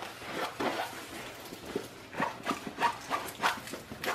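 Crinkling and rustling of a diamond painting canvas under its plastic film as it is rolled backwards by hand, in short irregular crackles that grow denser about halfway through.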